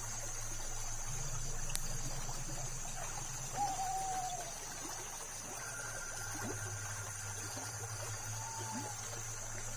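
Night-time outdoor ambience: a steady hiss with a high, even drone, and twice a short whistled call that falls in pitch, each about half a second long, several seconds apart.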